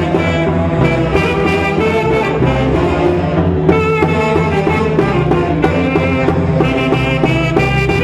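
Andean Santiago folk music: a melody played over a steady, repeating beat, without a break.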